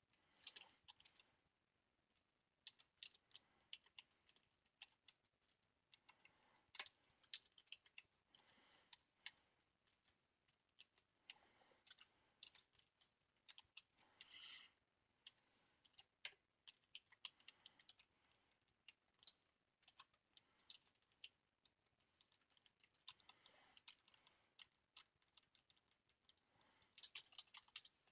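Faint computer keyboard typing: short bursts of rapid keystrokes separated by pauses.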